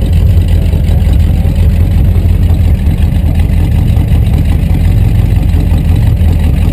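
Rat rod truck's engine running at low revs as the truck creeps along, a loud, steady low exhaust note heard from inside the cab.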